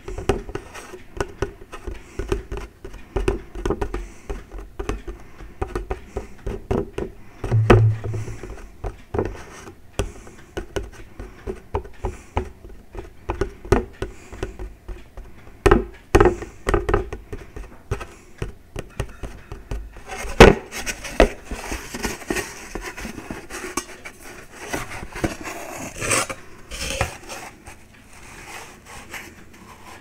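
Close-miked fingers tapping a paper plate: many irregular light taps, giving way after about twenty seconds to scratching and scraping, with a metal cup handled near the end.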